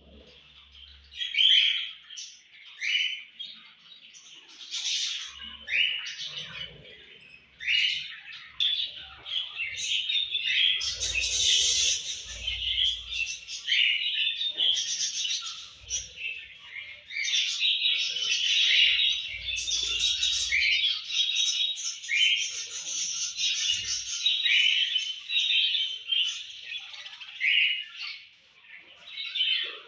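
Budgerigars chirping and chattering, a dense run of short calls with some squawks.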